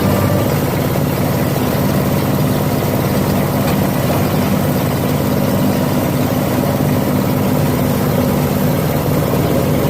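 Cocopeat and oil palm empty fruit bunch grinding machine running steadily, a loud, even mechanical noise that does not change.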